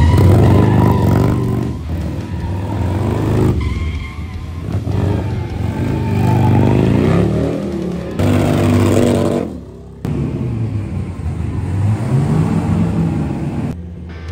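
Drift cars at full throttle, engines revving up and down over and over with tyre squeal, in a few clips cut one after another.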